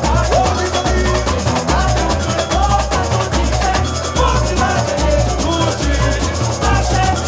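Samba-enredo played live by a samba school's bateria and singers. Surdo drums beat a steady low pulse under dense shaker and drum percussion, with the sung melody over it.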